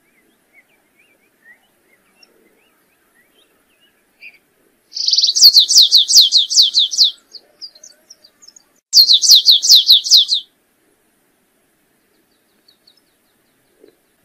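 Stripe-tailed yellow finch (canário-rasteiro) singing: two phrases of quick, repeated high notes, each sliding down in pitch. The first begins about five seconds in with a buzzy note and lasts about two seconds; the second, shorter one follows a couple of seconds later. Faint scattered chips come between them.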